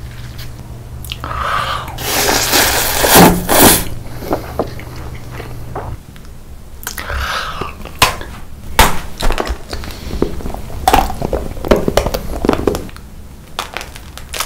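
A person eating crunchy food: repeated crunching bites and chewing, with clusters of sharp cracks, the loudest about eight to nine seconds in as a hard treat is bitten.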